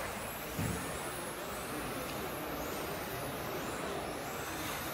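1:10 RC touring cars racing: the high whine of their electric motors rising and falling as the cars accelerate and brake, over a steady background hubbub.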